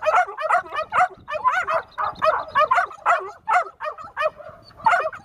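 A puppy yipping and barking over and over, about two to three high yips a second, each rising and falling in pitch.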